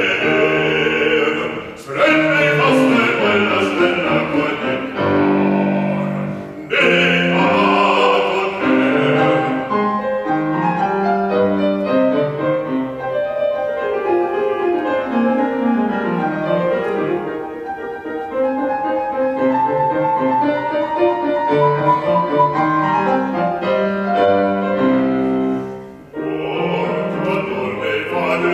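Operatic baritone singing with grand piano accompaniment. About ten seconds in the voice drops out, leaving the piano playing a solo passage of running notes, and the singing comes back near the end.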